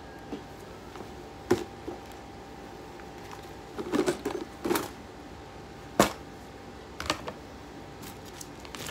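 Scattered clicks and knocks of a hard plastic storage box with an orange snap-on lid being opened and its contents, small food colouring bottles, handled. There is a cluster about four seconds in, and the sharpest click comes about six seconds in.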